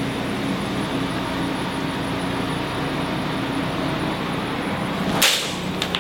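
A steady droning noise with a low hum, like machinery running, with one sharp crack about five seconds in and a fainter click just after it.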